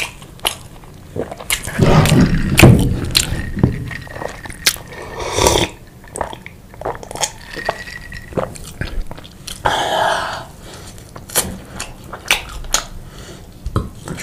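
Close-up eating sounds: chewing and biting, with many short wet mouth clicks and a louder stretch of chewing about two seconds in.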